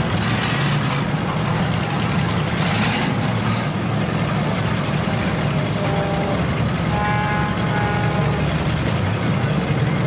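Demolition-derby pickup truck engines running together in a steady low rumble, one truck moving about the arena. A brief higher tone sounds about seven seconds in.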